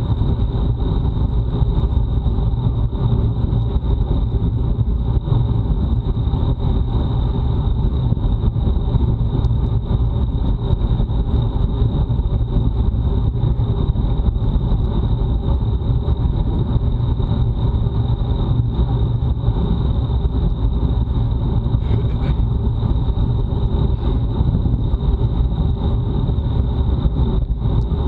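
Steady wind rush buffeting a bike-mounted action camera's microphone during a fast time-trial ride, with a constant thin high tone running under it.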